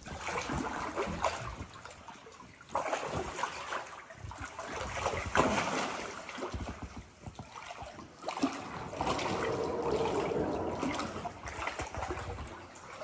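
River water trickling and splashing around inner tubes drifting through a shallow stretch, rising and falling in uneven swells.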